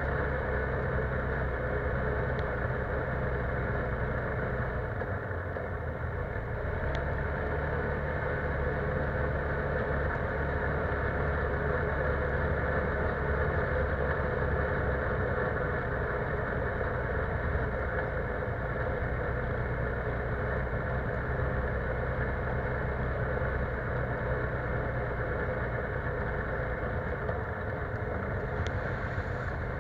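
ATV engine running steadily while the machine rides along a trail, with no marked revving or change in speed.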